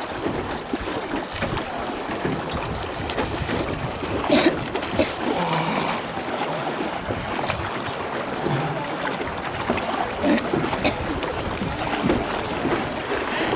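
Wooden oars of a small rowing boat dipping and splashing in the river water, with a steady wash of water noise.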